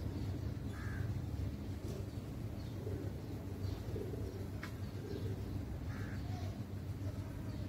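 Pigeons cooing softly with a few short crow caws, one about a second in and another near six seconds, over a steady low rumble. A single sharp click sounds a little before five seconds.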